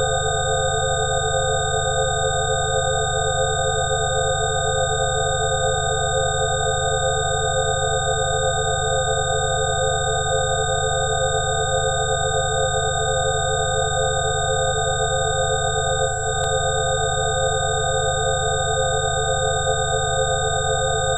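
Several synthesized pure tones held together in one unchanging drone, a 'healing frequency' track. Some of the middle tones waver in a slow pulse, over an even low hum. There is a brief dip and a faint click about sixteen seconds in.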